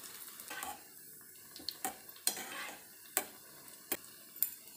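Bread slices deep-frying in hot oil in a steel pan, a steady sizzle, with several sharp clicks of metal tongs against the pan as the slices are moved.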